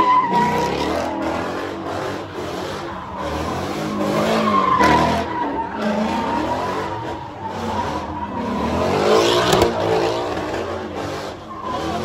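A car doing donuts: its tyres squeal in a long held tone over the sound of the engine revving up and down.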